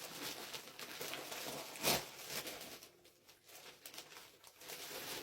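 Rustling of packaging and clothing being handled, with one sharp knock about two seconds in; the handling turns quieter and sparser about three seconds in.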